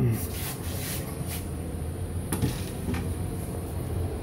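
Light, scattered knocks and rubbing from handling an opened crawl space access door, with a short low scrape about two and a half seconds in, over a steady low hum.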